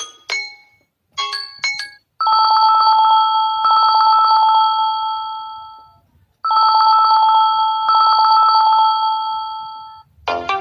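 Samsung Galaxy Tab A8 tablet ringtones: a few quick chiming notes, then a ringtone imitating a telephone bell rings twice with a fast trill, each ring about four seconds long. A new ringtone starts right at the end.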